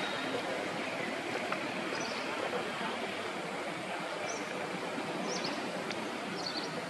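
Steady outdoor background rush with faint short high chirps repeating every second or so.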